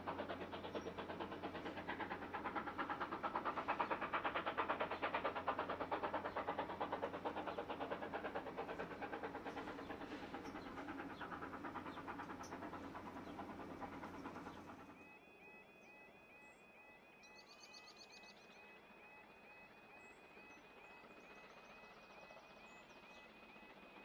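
Britannia class 4-6-2 steam locomotive and its train running past, a dense steady rush of exhaust and rolling noise that slowly fades. About fifteen seconds in it cuts abruptly to a much quieter scene: a faint high tone pulsing rapidly, with a few short chirps.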